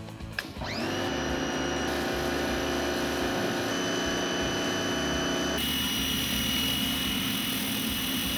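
Simpson Weekender electric pressure washer starting up about half a second in: its motor whine rises quickly and settles into a steady run under the hiss of the water jet. A little past halfway the spray hiss turns brighter.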